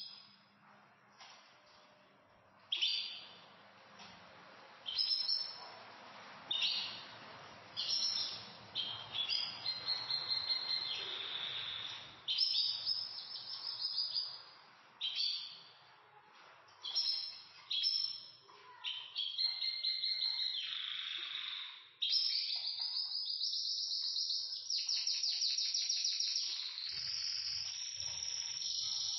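Pet canaries singing: short chirping phrases come a second or two apart, and about three quarters of the way through they run into a long unbroken rapid trill.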